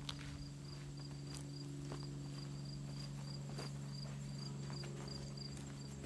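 An insect chirping in a steady high rhythm, about three pulses a second, over a low steady hum, with a few scattered footstep crunches on the forest floor.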